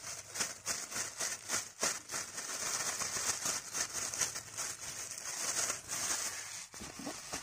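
Thin plastic bag crinkling and rustling in the hands as flour is shaken out of it into a stainless steel bowl, an uneven run of small crackles.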